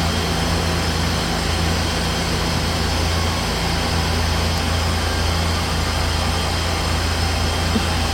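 Car engine running steadily: a low, even hum with a light noise over it.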